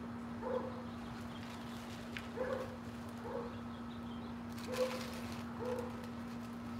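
An animal calling in short, pitched notes that come in pairs, three pairs in all, over a steady low hum.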